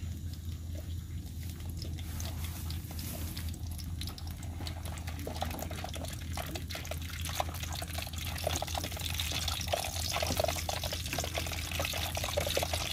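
Cooking oil heating in a large wok. It gives a faint hiss and crackle that grows louder and busier through the second half, over a steady low hum.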